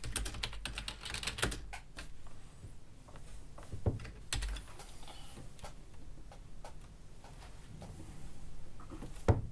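Typing on a keyboard: a quick run of irregular key clicks, then sparser clicks, with one sharper knock near the end.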